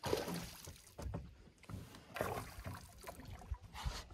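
Irregular splashing and water noise around a small fishing boat, coming in several uneven surges, with a few short knocks.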